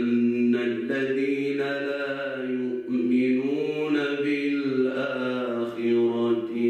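A man chanting Quranic verses in Arabic, tilawa style, in long melodic held notes that rise and fall slowly in pitch, with a short break for breath about three seconds in.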